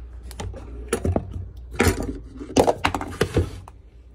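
Handling noise as a phone is set down and propped up on a kitchen counter: a series of sharp knocks, taps and rattles against the counter and nearby bowls.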